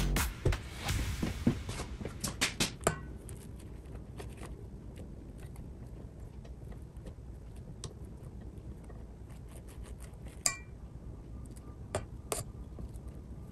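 Sparse clicks, knocks and clinks as a KitchenAid tilt-head stand mixer is raised and a spatula scrapes whipped cream off its wire whisk against the stainless steel bowl. The knocks cluster in the first three seconds, with a single ringing tap about ten and a half seconds in.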